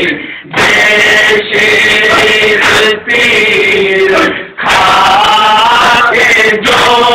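Nauha, a Shia mourning lament, sung loudly by a male lead reciter in long held phrases broken by short pauses for breath.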